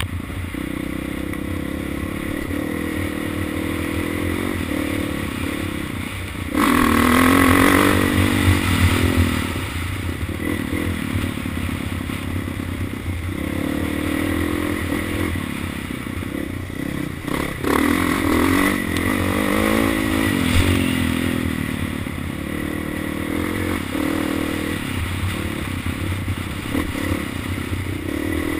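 Honda CRF450R dirt bike's single-cylinder four-stroke engine running under the rider as it is ridden along a trail, its pitch rising and falling with the throttle. It gets louder with a burst of throttle about seven seconds in and again about eighteen seconds in.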